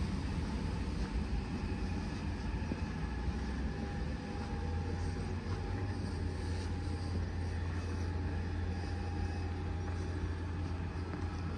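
Steady low rumble and hum of a VBZ Tram 2000 (Series 1) tramcar close by, with a faint steady whine through the middle.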